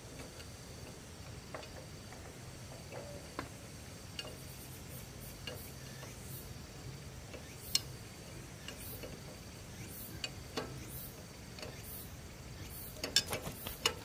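Irregular small mechanical clicks and taps, like parts being handled or worked by hand, over a faint steady hum. A quick cluster of sharper clicks comes near the end.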